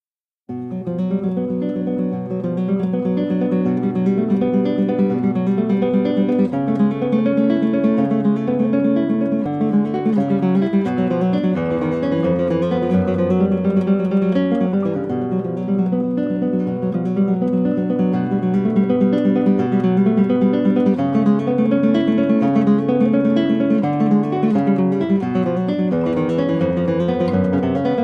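Background music: acoustic guitar playing, strummed and plucked, in a flamenco-like style.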